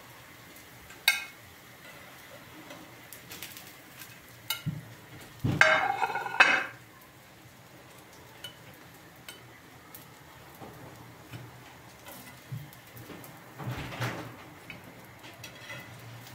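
Metal kitchen tongs clicking against a frying pan and a ceramic plate as zucchini fritters are turned and lifted out, over a faint sizzle of frying. A few sharp clicks are heard, and the loudest is a short ringing clatter about halfway through.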